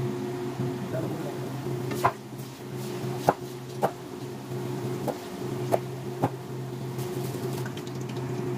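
Wooden spatula stirring carrots in a metal frying pan, knocking sharply against the pan about six times, over a steady low hum.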